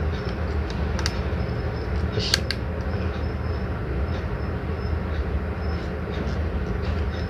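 A steady low rumble of background noise, with a few light plastic clicks as a Mini 4WD body shell and its small parts are handled and fitted. There is one click about a second in and a pair about two and a half seconds in.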